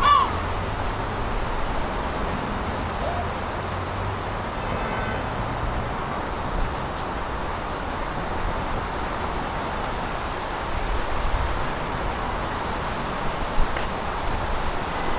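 Steady city outdoor ambience: a continuous wash of distant traffic noise, with a short high call right at the start.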